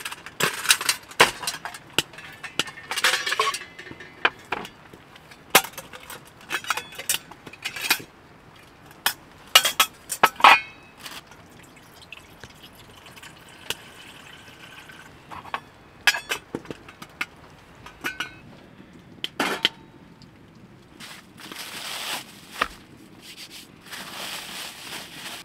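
Stainless steel cooking pot and lid clinking and knocking as it is handled. Around the middle, water is poured from a bottle into the pot. Near the end, plastic wrap crinkles as it is peeled off a ball of dough.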